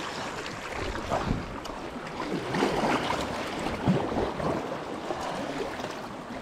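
Sea kayak paddle blades dipping and splashing in calm water, several strokes, over a steady wash of water around the hull.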